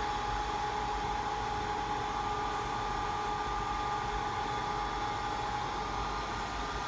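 BGA rework station's hot-air and cooling fans running steadily during its heating cycle, an even whir with a constant whine over it.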